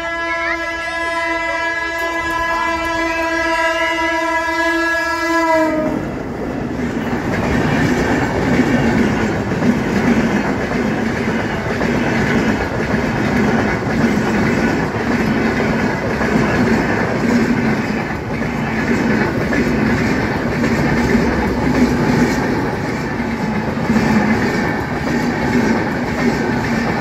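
A train horn held in one long steady blast, cutting off about six seconds in. Then an express passenger train running past at speed: the coaches rumbling and the wheels clacking over the rail joints.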